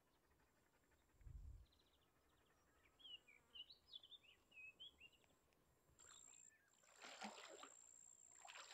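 Very faint outdoor quiet by a lake: a low thump about a second in, a small bird chirping faintly between about three and five seconds, then soft splashing of wading through shallow water near the end.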